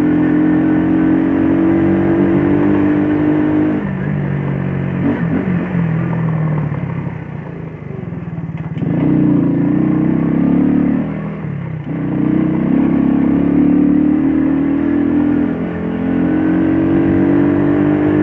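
Shineray Jet 50cc scooter's small engine running under way, its pitch climbing as it accelerates and dropping back each time the throttle is eased, about four times.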